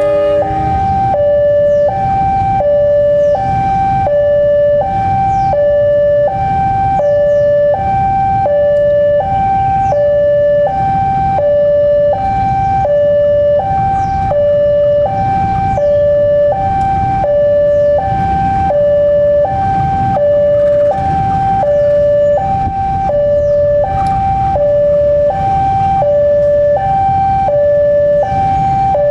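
A two-tone electronic alarm alternating steadily between a high and a low tone, each held about two-thirds of a second, over the low rumble of a CC 203 diesel-electric locomotive's engine.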